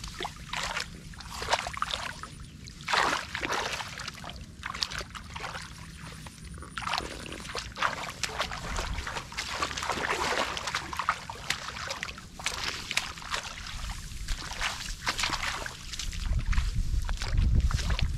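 Irregular splashing and sloshing of shallow water in a rain-flooded field, as hands work through it catching fish. A low rumble comes in near the end.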